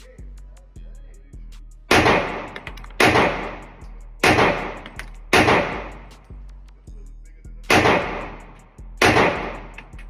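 Six gunshots from a firearm being fired slowly, about a second apart with a longer pause after the fourth, each with a short echoing tail. Background music with a steady beat plays underneath.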